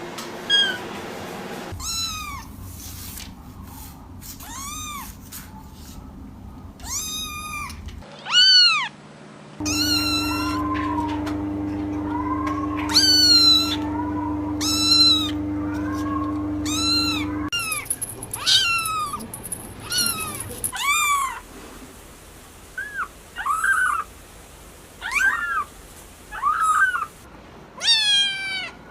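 Kittens meowing again and again: short, high-pitched mews, each rising and falling in pitch, in quick runs.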